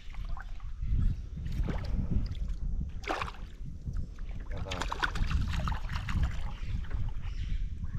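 Wind rumbling on the microphone, with water splashing and sloshing several times, loudest about three and about five seconds in.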